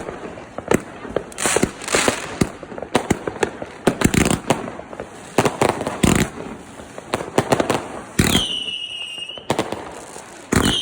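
Fireworks going off in a dense string of sharp bangs and crackles, with heavier swells of crackling every couple of seconds. About eight seconds in, a high whistle sounds for about a second, falling slightly in pitch.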